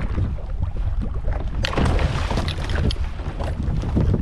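Water splashing as a hooked mahi-mahi thrashes at the surface beside the jet ski, over steady low wind noise on the microphone.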